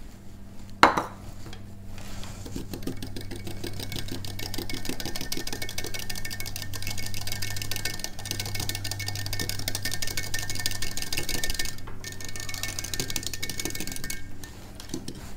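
Wire whisk beating salad dressing in a glass measuring cup: a fast, continuous rattle of the wires against the glass that starts about two seconds in, after a single clink, and stops shortly before the end.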